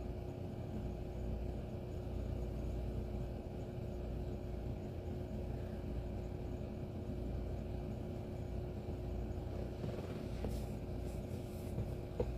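Steady low background hum with a faint constant tone running through it, and a single small click near the end.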